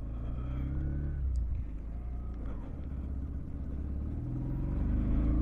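Bajaj CT 110X's 115 cc single-cylinder four-stroke engine pulling the bike away under throttle. Its note climbs, dips about halfway through, then climbs again and grows louder near the end.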